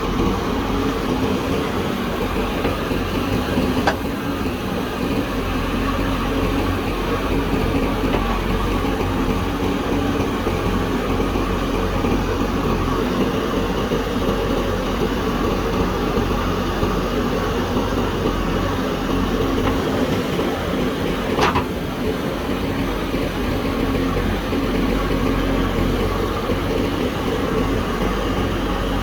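Diesel engine of a JCB backhoe loader running steadily at work, with two short sharp knocks, one a few seconds in and one about two-thirds of the way through.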